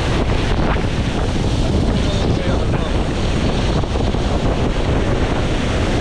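Powerful waterfall pouring into its plunge pool, heard from the water at its base: a loud, steady rush of falling water, with wind and spray from the falls buffeting the microphone.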